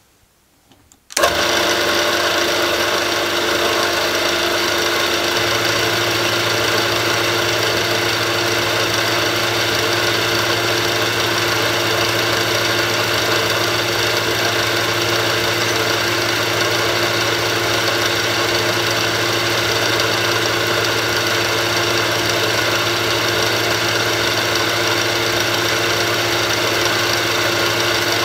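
Milling machine spindle switching on about a second in and running steadily, with an end mill cutting the pocket diameter in a 3 mm brass plate. A low hum grows a step louder a few seconds in.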